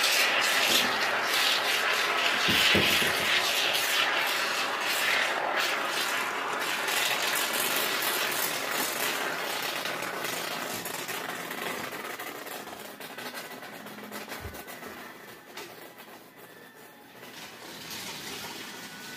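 Aerosol can of Great Stuff expanding spray foam hissing and sputtering as foam is dispensed through its straw nozzle, loudest at first and tapering off in the later seconds.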